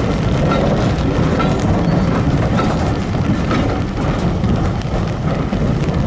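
Diesel railway engine running steadily close by, a loud even noise heaviest in the low end.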